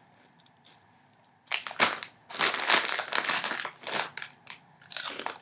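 Crinkly plastic snack packaging crumpled and handled, a dense irregular crackling that starts about one and a half seconds in and stops shortly before the end.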